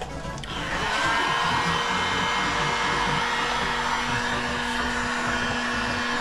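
Handheld electric blower, hair-dryer-like, switched on about a second in and running steadily: a steady rush of air over a motor hum.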